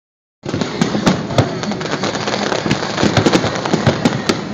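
Fireworks display, with shells bursting in quick succession: a dense run of sharp pops and bangs, several a second, over a continuous crackling haze. It starts about half a second in.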